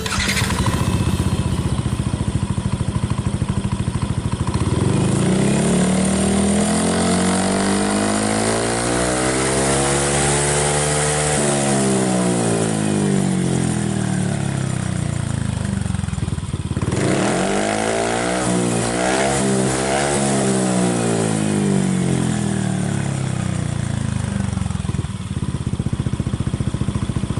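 Yamaha NMAX scooter's single-cylinder engine running through a Daytona full-carbon racing silencer, its pitch rising and then falling back in two long sweeps; the second sweep starts after an abrupt break a little past the middle.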